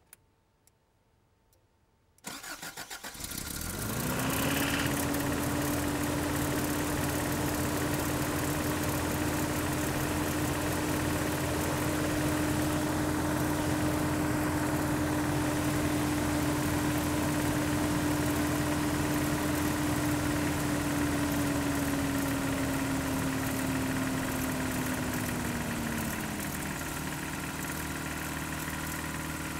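Toyota 22RE four-cylinder engine cranked briefly and starting from cold, then running at a steady fast idle that drops and settles to a lower idle near the end. The owner suspects a timing chain and possibly rod knock in this engine.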